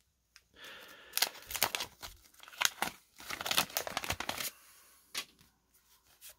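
Wax-paper wrapper of a repacked baseball card pack being torn open by hand, crinkling and ripping in a quick run of tears for about four seconds. A few faint clicks follow as the card stack is handled.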